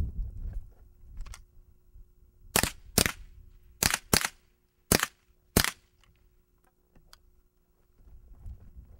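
Six sharp .22 LR rimfire gunshots: two quick pairs, then two single shots, spread over about three seconds as the shooter engages targets.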